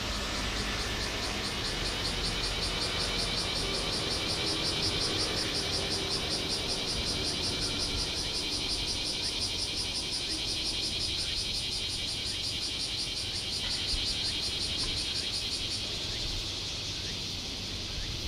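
Cicadas singing in a chorus, a fast pulsing buzz that fades out near the end, over a low steady rumble.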